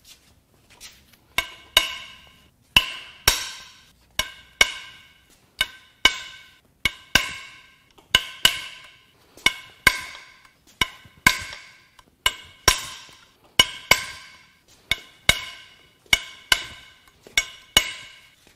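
Repeated hammer strikes on metal engine parts, each hit ringing briefly, about two a second and often in close pairs.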